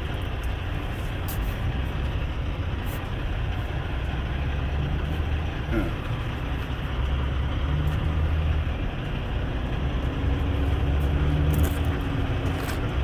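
Steady low rumble of idling diesel truck engines, with low hum that swells and fades and a few faint clicks.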